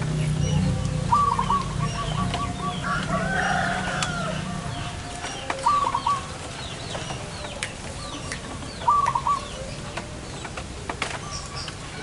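Zebra doves calling: a fast trill of short repeated cooing notes about a second in, then two short bursts of the same notes near the middle and about three-quarters through. Small birds chirp throughout, a louder, longer call comes around three seconds in, and a few sharp clicks are heard.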